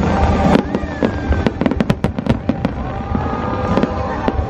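Aerial fireworks display: shells bursting in rapid, irregular succession, many sharp bangs over a continuous low rumble.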